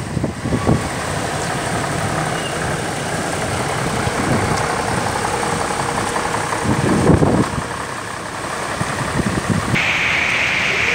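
Slow road traffic in a flooded street: car engines running at low speed as cars and a pickup roll through standing water. Near the end the sound changes to a steadier hiss.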